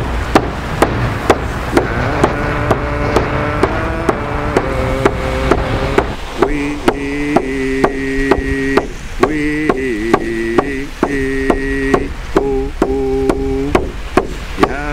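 Background music: a steady percussive beat, about two strikes a second, under sustained pitched chords that change every second or so.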